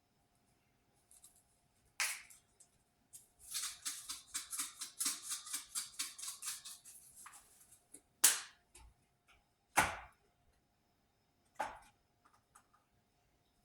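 A seasoning shaker of garlic pepper being shaken over a pot, rattling in quick, even shakes of about four or five a second for three or four seconds. Single sharp clicks and knocks come before and after, as the container is handled.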